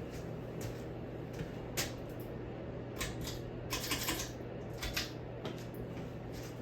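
Hunter 44-inch ceiling fan running, with a steady low motor hum and irregular sharp clicks and ticks over it.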